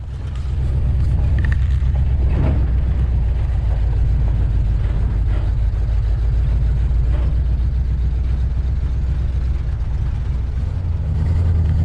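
A vehicle engine running steadily with a low, even drone, as when driving.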